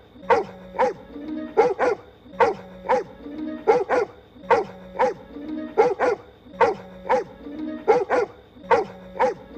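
Dog-like barks voiced for a cartoon pony, one short clip looped: the same pattern repeats about every two seconds, two single barks and then a quick pair. Faint steady background tones run underneath.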